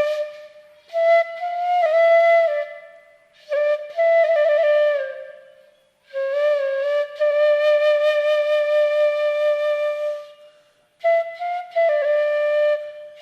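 Background music: a solo wind-instrument melody played in slow phrases with short pauses between them, including one long held note in the middle.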